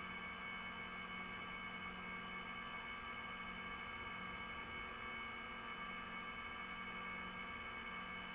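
DJI FPV drone's motors spinning steadily at idle: an even whine of several fixed tones over a low hum.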